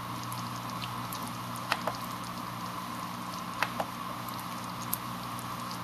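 Hydrogen electrolysis cell fizzing and bubbling steadily as it makes gas under PWM drive, with a steady electrical hum from the cell. A few sharp clicks stand out over it, two close pairs and then a single one.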